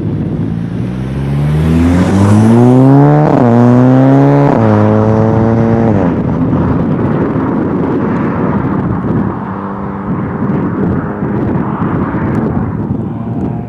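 Audi A4 B9 Allroad with a Revo Stage 2 tune, catless downpipe and Vibrant resonator-and-muffler exhaust accelerating hard past. The engine note rises, drops briefly at an upshift about three seconds in, and rises again. It then falls as the car lifts off, and runs on at a steadier, lower note as the car drives away.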